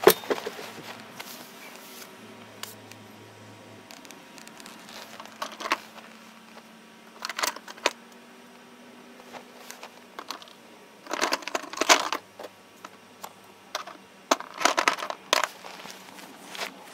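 A sharp knock, then irregular bursts of rustling and crinkling with scattered clicks, separated by quiet stretches.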